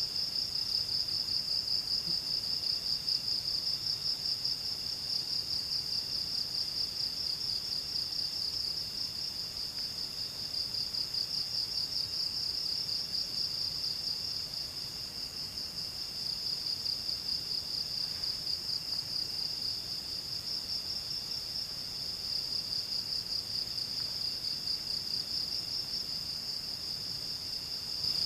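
A steady chorus of trilling insects: a continuous high, finely pulsing buzz, with a second, lower trill that comes and goes every few seconds.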